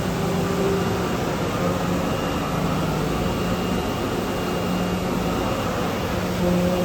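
CNC oscillating knife cutting machine running: a steady mechanical whir with a low humming drone that fades in and out every second or so.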